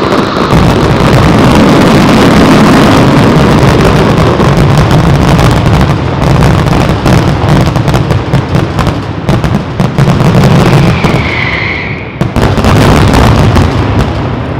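Fireworks shells bursting in a dense, continuous barrage of overlapping booms and cracks, the closing barrage of a display. A short whistle sounds about eleven seconds in, and the barrage thins out just before the end.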